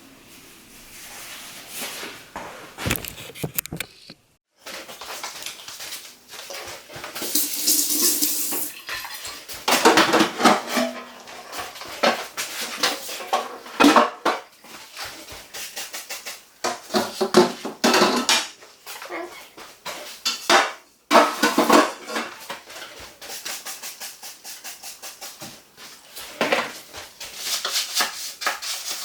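Irregular clinks, knocks and clatter of dishes, containers and fridge shelves being handled while a refrigerator is emptied and cleaned, with a brief hiss about eight seconds in.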